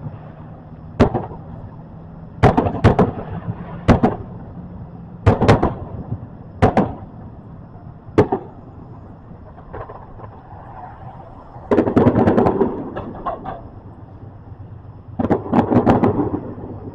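Fireworks going off: single sharp bangs every second or so, then two rapid volleys of crackling bangs near the middle and near the end.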